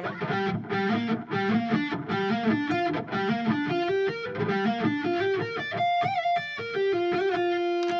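8-string electric guitar playing a quick arpeggio pattern, one note after another, over a G minor 7 chord. Near the end it settles into longer held notes with a short bend.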